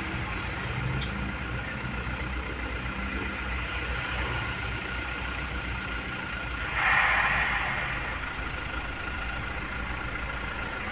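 Bus engine running steadily at low revs, with a brief louder burst of hissing noise about seven seconds in.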